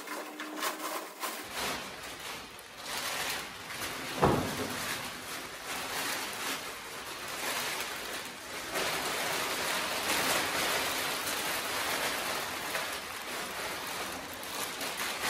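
Unpacking of a treadmill played fast-forward: a dense rustling hiss of cardboard and plastic packing being handled, with many quick knocks and one brief downward swoop about four seconds in.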